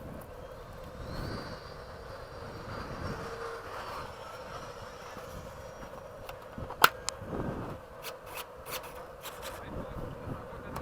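Steady outdoor background noise with a faint hum, then one sharp click about seven seconds in and several lighter clicks after it.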